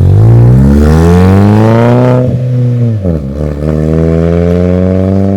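Chevrolet Astra 2.0 four-cylinder engine running through a bare exhaust pipe with no muffler, revving hard. Its pitch climbs for about two seconds, falls away around the third second, then climbs again and holds.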